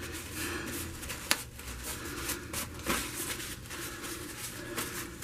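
Quiet rustling and handling noises from the paint work, with a sharp click about a second in and another near three seconds.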